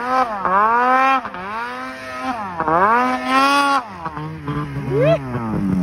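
Snowmobile engine revving hard in deep snow, its pitch repeatedly climbing and falling back as the throttle is worked, with a sudden drop about four seconds in and a short rev near the end.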